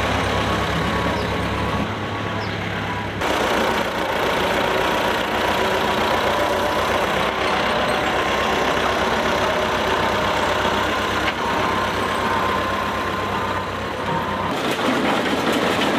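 Tractor engine running steadily, its sound changing abruptly about two and three seconds in and again near the end.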